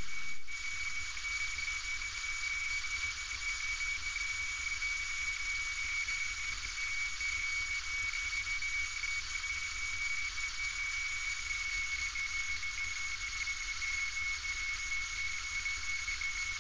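Steady cabin noise of a light single-engine airplane in flight: an even hiss of engine and airflow with a thin, steady high whine over it.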